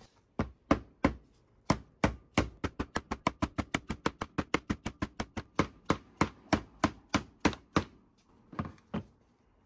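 A new Marlin Crawler output seal being tapped into a transmission's rear bell housing. A rapid run of about three dozen light metallic taps, quickening to around six a second in the middle, then two fainter taps near the end as the seal seats.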